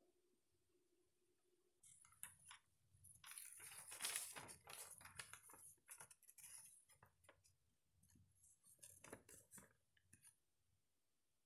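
A printed sheet of paper rustling and crinkling as it is handled, in a run of crisp rustles that is busiest a few seconds in, with a smaller flurry near the end.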